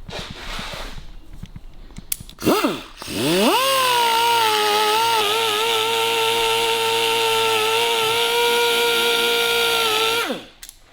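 An electric power tool's motor: a short blip, then it spins up about three seconds in, runs at a steady pitch for about seven seconds, and winds down near the end.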